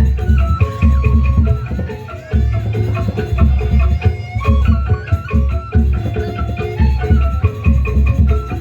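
Upbeat dance music: quick hand-drum strokes over a heavy, pulsing bass beat, with a melody line on top.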